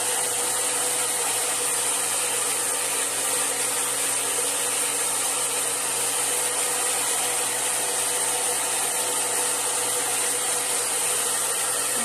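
Handheld hair dryer running steadily: a constant rush of air with a steady motor hum.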